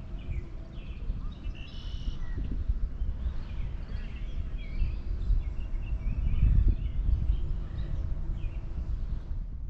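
Lakeside ambience: small birds chirping now and then over a loud, uneven low rumble that swells about two-thirds of the way through.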